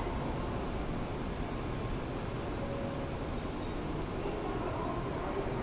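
Shinkansen platform departure bell ringing: a continuous electronic trill, steady in level, over the hum of the platform and the waiting train.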